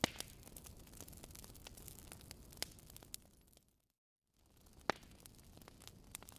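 Wood fire crackling: a low steady hiss with scattered sharp pops, a few of them loud. About halfway through it fades out to silence and fades back in half a second later.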